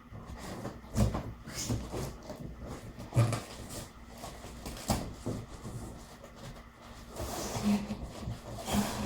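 Cardboard box and packaging being handled: scattered knocks and thuds with stretches of paper and plastic rustling.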